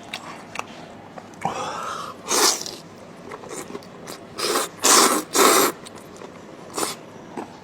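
Close-miked eating: a person chewing, broken by about five short, loud, noisy sucking sounds through the mouth, three of them in quick succession about two-thirds of the way through.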